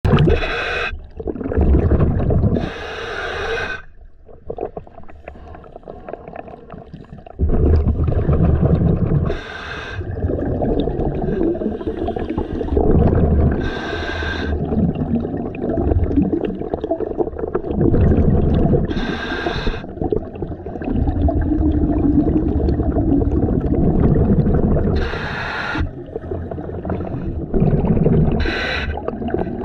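A scuba diver breathing through a regulator underwater: a short hissing breath every few seconds, seven in all, with a rough bubbling rumble between them.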